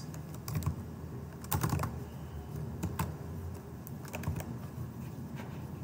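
Typing on a computer keyboard: scattered key clicks, some in quick runs, with short pauses between.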